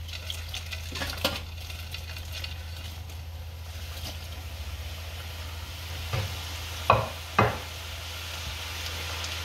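Par-fried potato fries dropped back into hot sunflower oil in a pot for their second fry, the oil sizzling and bubbling steadily around them. A few sharp knocks come about a second in and twice near seven seconds.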